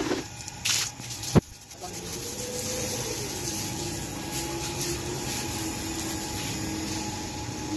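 Water spraying in a steady hiss, starting about two seconds in after a sharp click.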